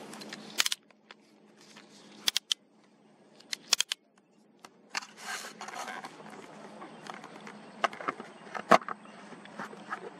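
Handling noise from a camera and tripod being picked up and adjusted: scattered sharp clicks and knocks with some rustling, the loudest knock near the end.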